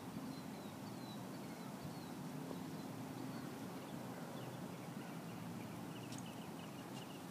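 Wheels of a rollator walker rolling slowly along a concrete sidewalk: a low, steady rumble with an occasional sharp click. Faint short chirps of birds sound above it.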